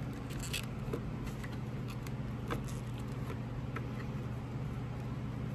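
Faint clicks and rubbing of a rubber grommet being worked off an outboard motor's throttle cable and wiring by hand, a few scattered small clicks over a steady low hum.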